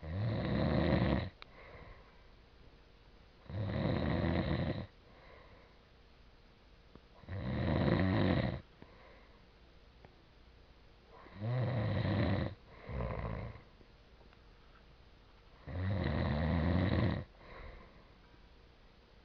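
A man snoring in his sleep, growling like a dog: five loud snores of about a second each, roughly every four seconds, with a short extra snore just after the fourth.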